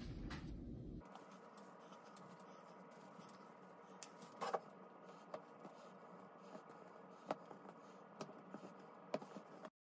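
Quiet room tone with a few faint clicks and light taps, the clearest about halfway through: a metal biscuit cutter and dough being handled on a wooden board.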